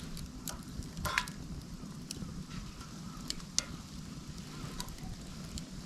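Fire of burning dry split bamboo (a bamboo Swedish torch) crackling, with a steady low rumble and sharp pops every half second to second. The fire is burning down late in the burn.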